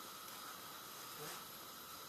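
Faint, steady background hiss with a thin steady tone, and no distinct sound events.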